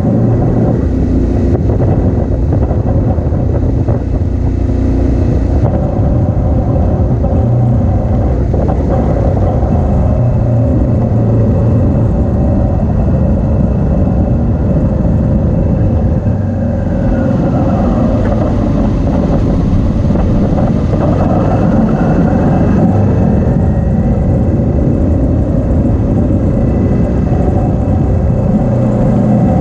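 Motorcycle engine running steadily at road speed, heard close from a camera mounted on the bike, with wind and tyre noise mixed in. The engine note rises and falls a little about two-thirds of the way through.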